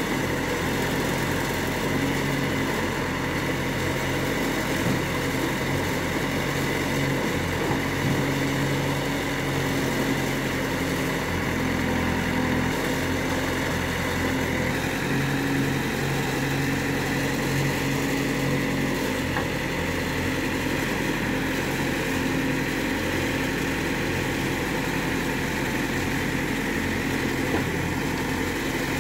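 Diesel engine of a Case backhoe loader running steadily as it works its hydraulic arm, scooping soil and tipping it into a tractor trolley, its note shifting slightly with the load.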